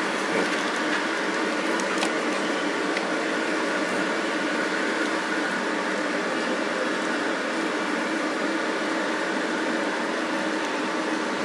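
Steady mechanical hum with no change in level, like an appliance or fan running.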